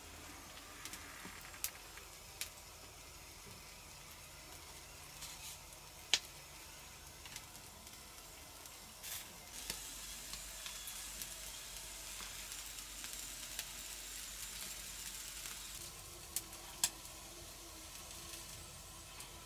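Chicken and vegetables sizzling in a wire grill basket over wood embers, a steady hiss with scattered sharp pops; the loudest pop comes about six seconds in.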